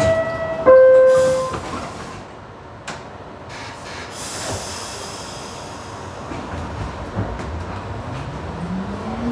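R62A subway car door chime: two descending tones, ding-dong, as the doors are about to close. A knock follows about three seconds in, and then a hiss. Near the end the traction motors begin a rising whine as the train pulls away.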